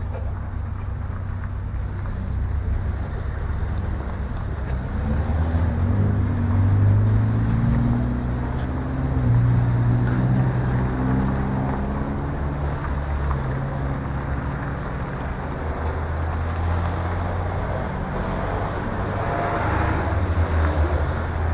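Road vehicle driving: a steady low engine drone whose pitch rises and falls as it changes speed, over road noise.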